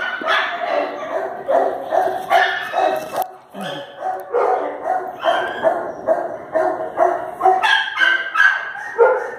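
A dog barking in a rapid, regular run of short barks, about two to three a second, with a brief lull a little past three seconds in.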